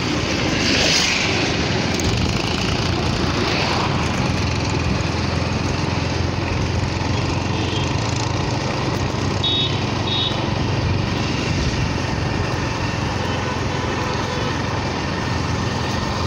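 Motorcycle running steadily at road speed, heard from the pillion seat as a constant mix of engine and wind noise. Two short high beeps about ten seconds in.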